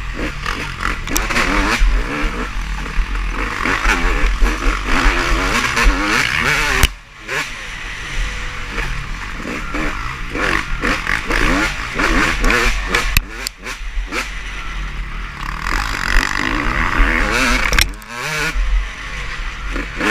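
Motocross race bikes revving and accelerating on the track, their engine pitch repeatedly rising and falling as they pass and shift.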